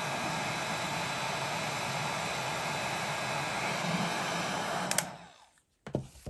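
Hot-air blower running steadily, blowing warm air into a plastic gas tank to dry out the water left inside. It is switched off with a click about five seconds in and winds down, followed by a couple of knocks.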